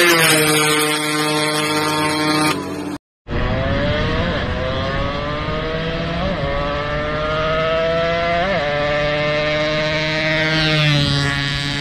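Yamaha RX-King's single-cylinder two-stroke engine running hard at speed. Its pitch dips just after the start, cuts out for an instant about three seconds in, then climbs slowly with brief blips before falling again near the end.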